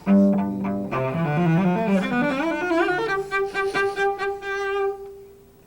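Cello playing a quick rising passage in broken thirds, ending on a long held high note about two seconds from the end.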